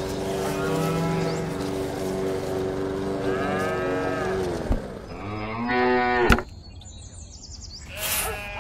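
Cattle mooing: two long, drawn-out moos, the second cut off abruptly about six seconds in.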